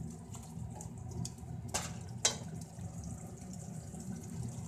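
Wooden spoon stirring potatoes and peas in a bubbling curry in a metal pot, with two sharp knocks of the spoon on the pot about two seconds in.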